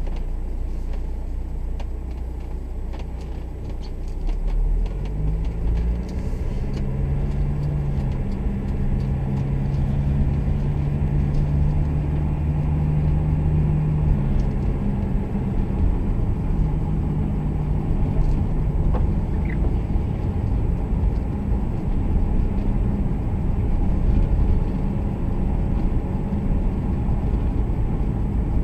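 Car engine hum and tyre rumble heard from inside the cabin as the car drives along a city street, the engine note rising a few seconds in as it picks up speed, then easing back about halfway through.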